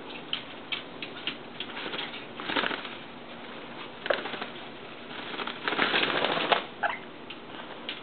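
Pet parrots moving about: small clicks and scuffles from beaks and claws, a couple of short squeaks, and a louder rush of noise lasting about a second near the middle.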